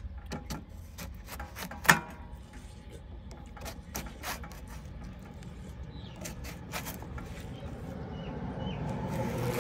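A large knife cutting into a yellow-skinned watermelon: a string of short, crisp cracks and crunches as the blade splits the rind, the loudest about two seconds in. A passing vehicle's engine grows louder near the end.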